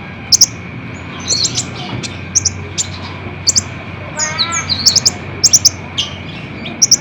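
Purple-throated sunbird (kolibri ninja) singing: sharp, very high double and triple notes repeated every half second to a second, with a short lower run of falling notes about four seconds in.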